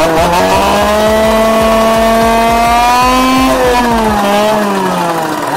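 Motorcycle engine pulling up through the revs, its pitch climbing steadily for about three seconds, then dropping away over the next second and a half.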